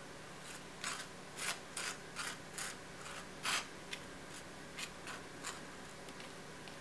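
Table knife spreading mustard on the toasted face of a bun: about a dozen short, irregular scrapes of the blade across the crisp toasted surface.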